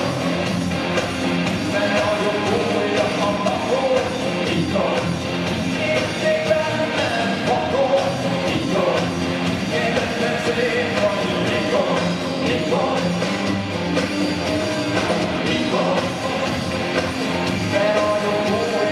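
Live rock band playing a song with a lead vocal over electric guitars, bass guitar, drums and synthesizer, heard from the audience in an arena.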